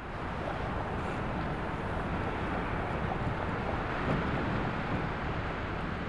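Strong wind blowing steadily, a continuous rushing noise with a deep rumble.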